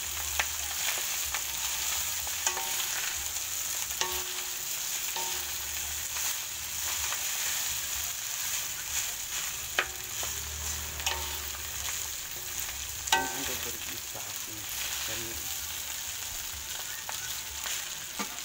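Garlic fried rice sizzling in a metal wok over a gas flame while a wooden spatula stirs and scrapes through it, with scattered knocks of the spatula against the pan. One louder clack comes about two-thirds of the way through.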